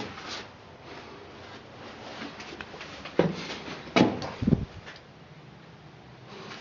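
A few sharp knocks, three to four seconds in, followed by a dull thump, over faint steady room hiss.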